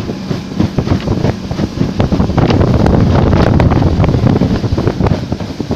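Wind buffeting the microphone on a fast-running outboard motorboat, gusty and loud, with the rush of water from the hull and wake beneath. It grows louder about halfway through, then eases near the end.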